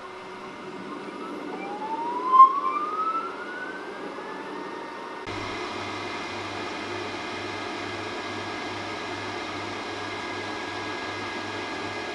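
Creality resin wash-and-cure station running. During washing, a motor whine rises in pitch as it spins up. About five seconds in, it switches abruptly to a steady hum with a soft low pulse about twice a second while curing.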